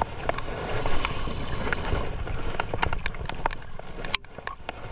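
A small fishing boat drifting at sea: water slapping and lapping against the hull over a steady low rumble, with scattered irregular knocks and clicks.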